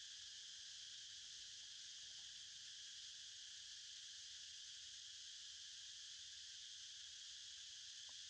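Faint, steady, high-pitched insect chorus, an even unbroken hiss of crickets or cicadas.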